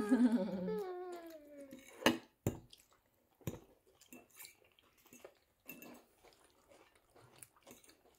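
A high-pitched whining cry that bends and falls in pitch, fading out about two seconds in. It is followed by a few sharp clicks and soft knocks of dishes and cutlery during a meal.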